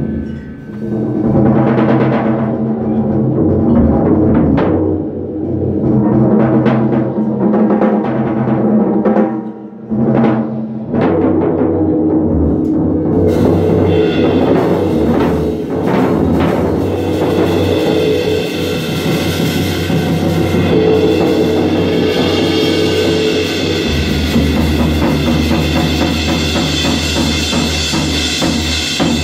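Live rock band with the drum kit to the fore, drums hit over a steady electric bass line. About halfway through, cymbals and the rest of the band come in and the sound turns full and bright.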